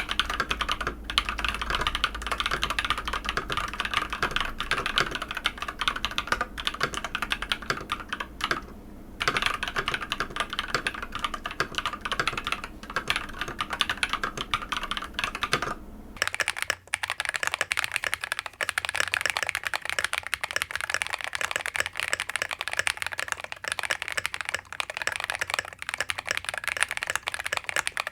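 Fast continuous typing on an Epomaker TH80-X mechanical keyboard, a dense stream of key clacks. About halfway through it changes to typing on a KiiBoom Phantom 81 V2 mechanical keyboard, whose clacks are brighter, with less bass.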